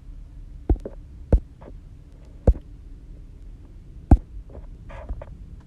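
Sharp, single clicks of a computer mouse close to the microphone, four loud ones spaced about a second apart and a few fainter ones near the end, over a low steady hum.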